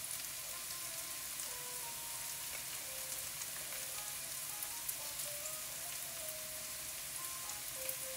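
Vegetables sizzling in hot oil in a skillet: a steady frying hiss with faint scattered crackles.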